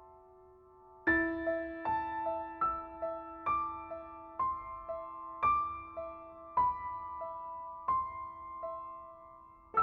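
Background piano music: a soft, slow piano piece. A chord comes in about a second in, then single notes follow at an even pace over a repeating middle note.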